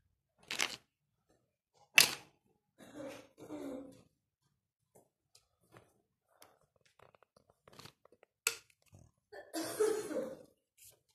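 Hard plastic parts of a toy pressure water gun's pump knocking and clicking as they are handled and fitted together. There are two sharp clicks, about half a second and two seconds in, then scattered small ticks and short rustling scrapes, with a longer scraping stretch near the end.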